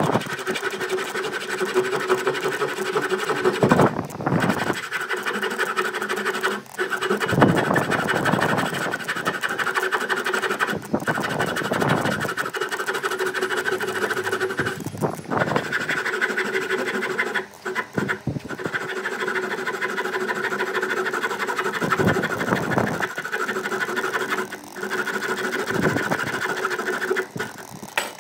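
A small electric power tool's motor running steadily with a constant whine. It dips briefly a few times and swells with extra noise at several points, as if the tool is loaded against the work.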